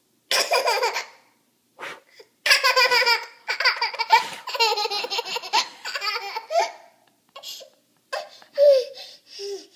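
Toddler laughing in bursts: a short laugh near the start, a long run of quick, pulsing laughter in the middle, and a few shorter laughs near the end.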